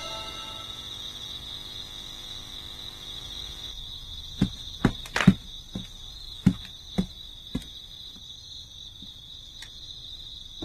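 Crickets chirping steadily, with a run of about eight footsteps on wooden floorboards from about four to seven and a half seconds in.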